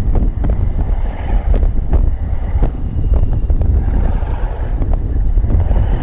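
Wind buffeting the microphone over a deep, low vehicle rumble, with a few short knocks scattered through it.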